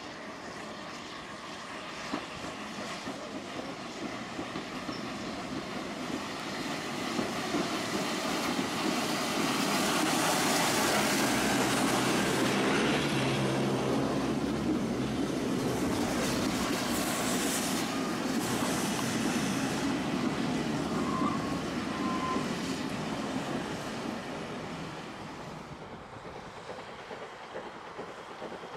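A steam-hauled train, GER Y14 0-6-0 No. 564 with its Pullman dining coaches, passing by: the rumble and clatter of wheels on the rails build to a peak about halfway through, then fade away.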